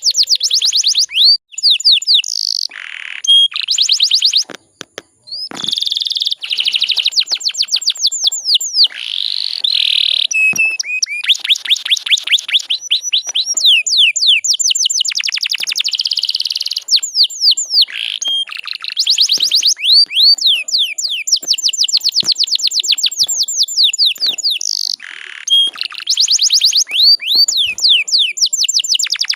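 Canary singing: long, rapid trills of high notes that each sweep downward, repeated many times a second and broken by short pauses.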